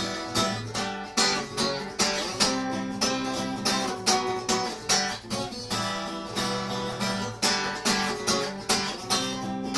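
Acoustic guitar strumming chords in a steady rhythm: an instrumental interlude of the song, with no singing.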